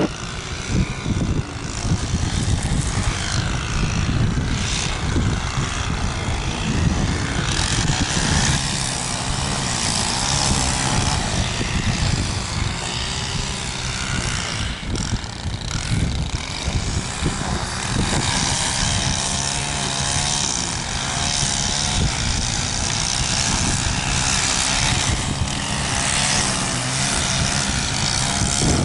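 Aircraft engines running as a plane passes, heard through strong wind buffeting the microphone.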